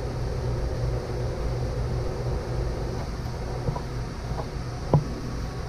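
A steady low machine hum, with a few light knocks and one sharper tap about five seconds in as a plastic dough scraper cuts and lifts dough on a prep table.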